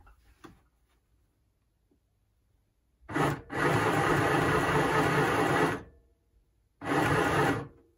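Small electric Midi sewing machine stitching a zip in short runs: a brief blip about three seconds in, a steady run of a little over two seconds, then a shorter run of under a second near the end.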